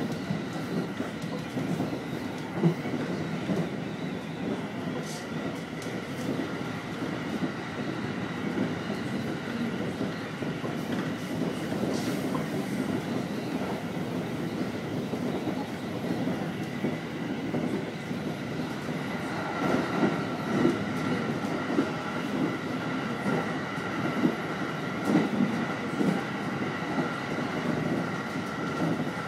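Electric commuter train on the Utsunomiya Line running along the track: a steady rumble of wheels on rail with a faint steady whine. In the second half, a run of knocks as the wheels pass over rail joints.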